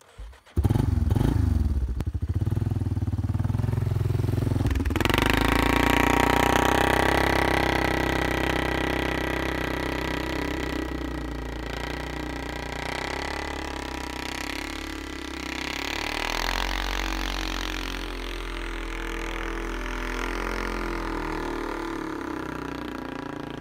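ATV (four-wheeler) engine starting with a sudden catch about half a second in and running for a few seconds, then revving up about five seconds in as it pulls away through snow, slowly fading as it drives off.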